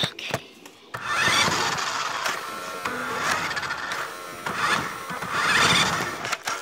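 Toy remote-control car's small electric motor and gears whirring, starting about a second in and surging and easing several times as it is driven.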